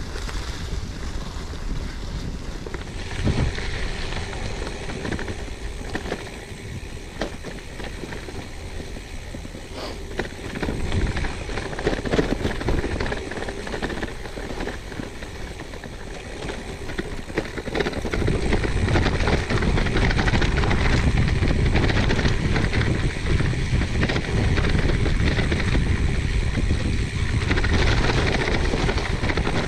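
Gravel bike riding along a forest track: wind rumbling on the microphone, with tyre and trail noise. It grows clearly louder about two-thirds of the way through.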